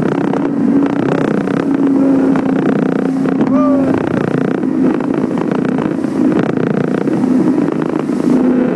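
Boston Whaler Outrage 240's outboard engine running under way through rough seas, under a steady rush of wind and water. The engine's hum fades in and out as the boat rides the swells.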